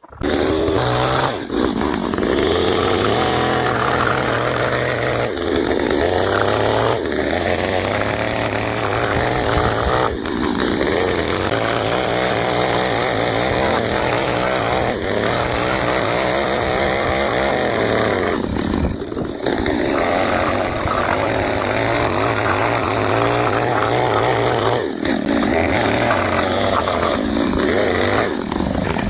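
Chainsaw running at high throttle while cutting into a slab of oak, easing off briefly several times between cuts.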